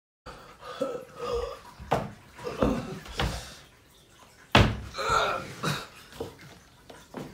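A man's wordless grunts and groans of effort, broken by several sharp knocks and thumps, the loudest about four and a half seconds in.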